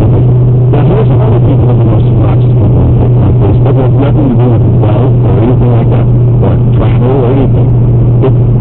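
Steady loud drone of a car's engine and road noise inside the cabin, with muffled talk from the car radio underneath.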